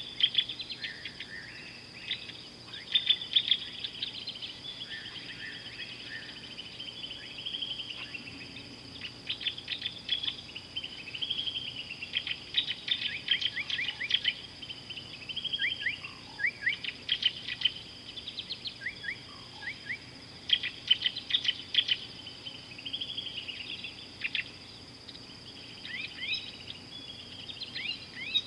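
Several birds calling and chirping in quick, overlapping phrases, over a steady high insect drone.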